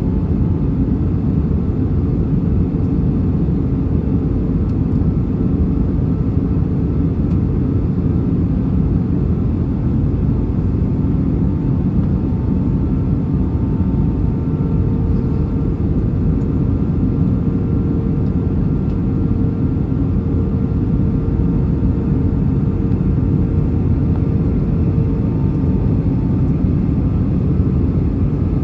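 Steady cabin roar of a British Airways Airbus A319 in flight, heard from a window seat over the wing: engine and airflow noise, heaviest in the low end, with faint steady hum tones that fade in and out.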